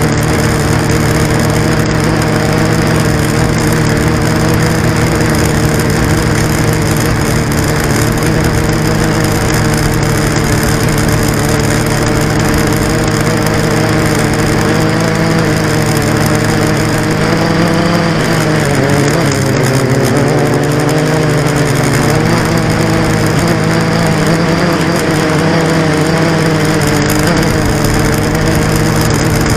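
Blade 350 QX quadcopter's four brushless motors and propellers whining steadily in flight, heard close up through its on-board camera. The pitch wavers and dips for a few seconds past the middle as the motor speeds change.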